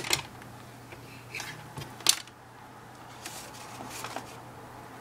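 Light clicks and taps of handling, with one sharp click about two seconds in, as the AC adapter's plug is pushed into the laptop's newly repaired DC jack.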